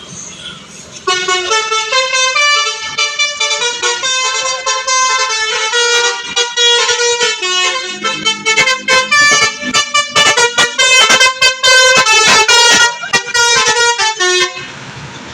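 Bus telolet horn: a multi-tone musical air horn playing a quick tune of changing notes. It starts about a second in and cuts off shortly before the end.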